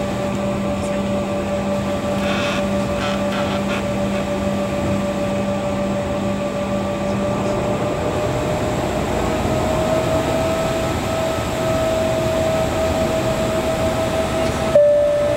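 Jet airliner's engines heard from inside the passenger cabin while taxiing: a steady rumble under a held whine that rises slightly in pitch about two-thirds of the way through, as a lower hum drops away about halfway.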